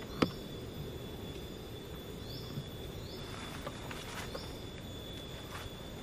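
Lakeside insect chorus: a steady, high-pitched insect drone with a string of short rising chirps every second or so. A single sharp click just after the start is the loudest sound, with a few faint clicks later.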